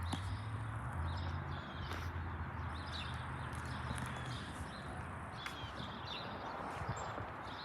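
Outdoor construction-site ambience: a steady low engine hum that fades out about halfway, birds chirping, and scattered light clicks and knocks.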